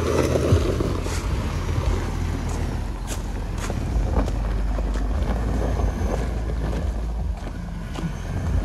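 Ford F-150 pickup engine running with a steady low rumble as the truck drives slowly over gravel, with scattered crunches from the tyres and wind on the microphone.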